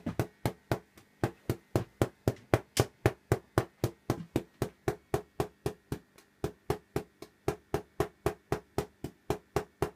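Spark discharge from a PLL solid-state Tesla coil running on a pancake primary: evenly spaced sharp cracks, about five a second, each one a burst of the interrupted coil throwing an arc.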